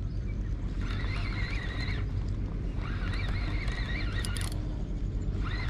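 Large spinning reel (Shimano Beastmaster 10000) being cranked to wind in a hooked fish. It whirs in three spells of one to two seconds, its pitch wavering with the speed of the handle, over a steady low rumble.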